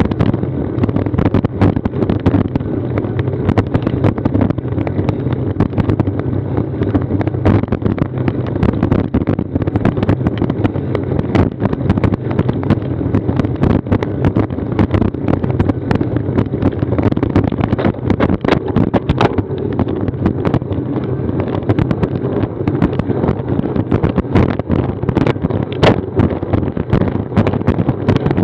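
Wind rushing over a Garmin VIRB action camera's microphone during a road bicycle ride, with steady road rumble and frequent small knocks and rattles throughout.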